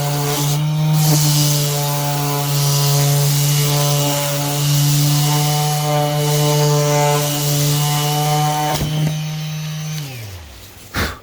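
Bauer 20V cordless trim sander running steadily against painted bodywork: a steady motor hum under the hiss of abrasive on paint. Near the end it is switched off and its pitch falls as it winds down, followed by a short knock.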